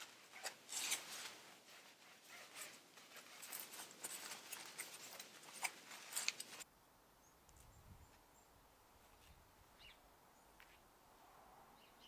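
Microfibre cloth wiping over a carbon-fibre motorcycle muffler: irregular rubbing and brushing with a few sharp clicks. It stops abruptly about two-thirds of the way through, leaving a faint outdoor background.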